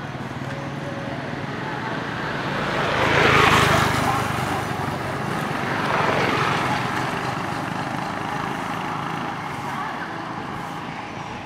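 Road traffic: a vehicle passes about three seconds in, swelling and then fading, and a second, smaller pass comes around six seconds, over a steady low engine hum.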